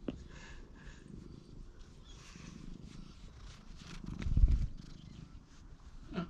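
Domestic cat purring while being stroked, a steady low rumble. A loud low bump a little after four seconds in.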